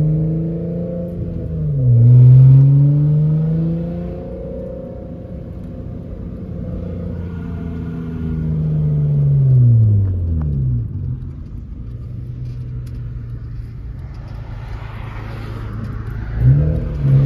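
A Honda Civic hatchback with a swapped-in Honda J-series V6 accelerating hard, heard from inside the cabin. The revs climb in first gear, drop sharply at the upshift about two seconds in, and climb again in second. Around eight to ten seconds the revs fall away and settle to a steady low engine note as the car cruises.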